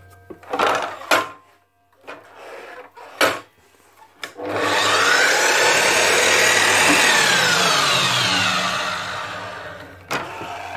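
Dewalt DW718 miter saw, freshly fitted with new motor bearings, being test-run. A few clicks and knocks come first. About four seconds in, the motor spins up with a rising whine, runs briefly, then winds down with a falling whine once released.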